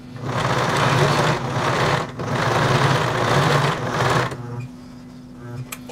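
Electric sewing machine stitching in two runs of about two seconds each with a brief pause between, then stopping about four seconds in.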